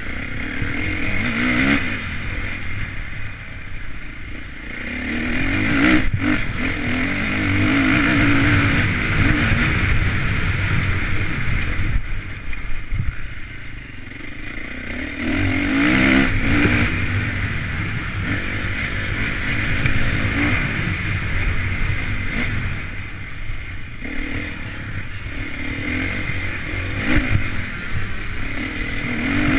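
Honda CRF450 single-cylinder four-stroke motocross engine revving up and dropping back in surges as the bike accelerates and slows around a dirt track. There is a single sharp knock about six seconds in.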